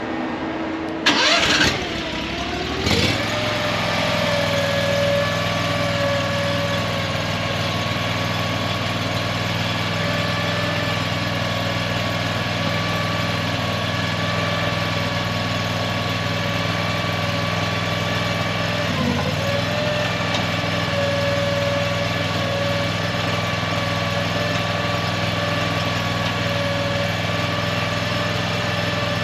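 Engine of a mini skid steer cranked by its starter for about a second, catching, and then running steadily. Its speed dips briefly about two-thirds of the way through, and it begins to wind down at the very end.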